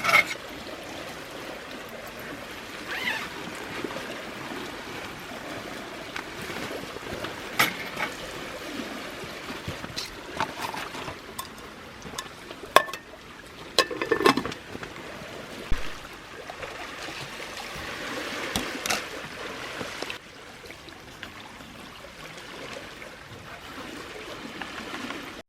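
Water trickling and splashing, with a few sharp clicks and knocks scattered through it, the loudest cluster a little past the middle.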